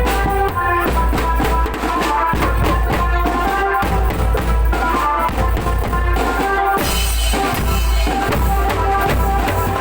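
Drum band playing: rapid snare and bass drum strokes under a held, pitched melody line. It gets brighter and noisier about seven seconds in.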